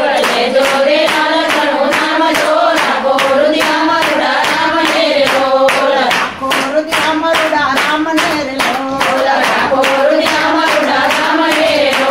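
A group of women singing a Gujarati Ram bhajan together in unison, clapping their hands in a steady rhythm on the beat.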